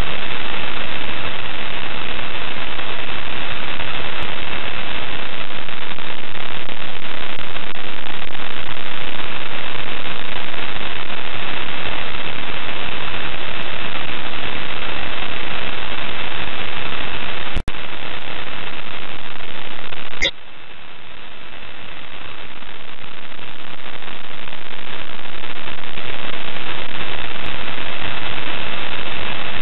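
Loud, steady radio static hiss with a faint steady high tone on the ISS space-to-ground audio feed, with no one transmitting. It cuts out for an instant about 17 seconds in; after a click about 20 seconds in it drops in level and slowly builds back up.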